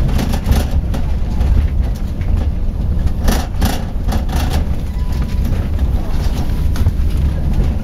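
Inside a moving bus: a steady low rumble of engine and road noise, with a few short rattles about three seconds in.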